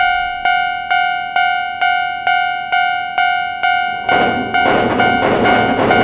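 Railroad crossing warning bell of a Taiwanese-style level crossing, struck about twice a second in an even rhythm. From about four seconds in, a passing train's rolling noise rises loudly under the bell.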